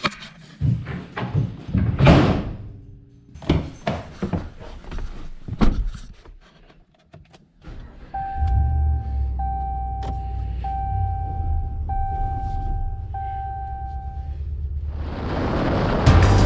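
John Deere E120 lawn tractor engine starting on its new battery about two thirds of the way in and then running steadily, with five long electronic beeps over it, after a few knocks and clicks. It runs louder near the end.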